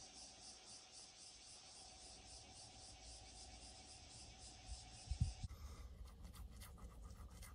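Faint insects chirping in a steady, fast pulsing trill, with a single low thump about five seconds in. Then the background changes suddenly to quiet room tone with faint ticks.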